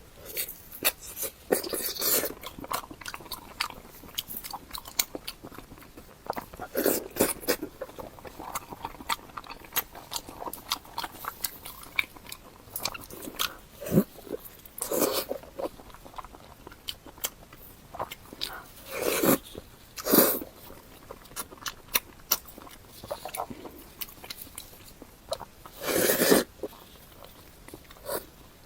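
Close-miked eating sounds of a person biting and chewing pork skin rolls: a steady stream of small wet mouth clicks, broken by a handful of louder bites.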